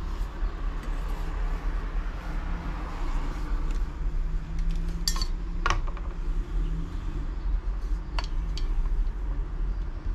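A few light clicks and clinks of hard objects being handled, the clearest about five and eight seconds in, over a steady low hum.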